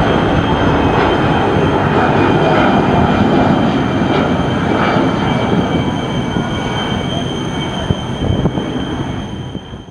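Jet engines of an Airbus A319 climbing out after takeoff: a loud, steady rumble with high whining tones over it, slowly easing as the airliner draws away.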